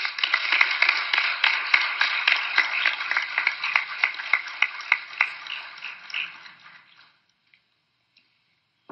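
Audience applauding, a dense patter of many hand claps that thins out and dies away about seven seconds in.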